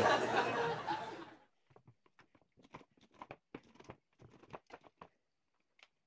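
A voice trails off about a second and a half in. Then comes a run of quiet, irregular knife taps and clicks as an orange is sliced into pieces on a plastic cutting board.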